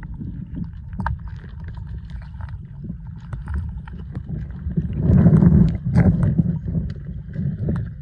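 Muffled underwater sound picked up by a phone microphone sealed in a waterproof case held under river water: a low rumble with scattered small clicks and knocks, swelling louder about five seconds in.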